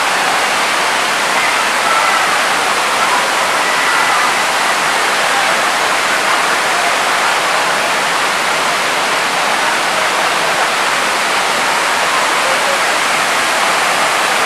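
Waterfall cascading over stepped rock ledges into a pool: a loud, steady rush of falling water.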